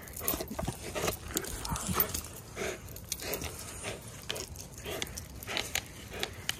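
A Newfoundland dog tugging on a braided rope toy, making short, irregular dog noises as it pulls.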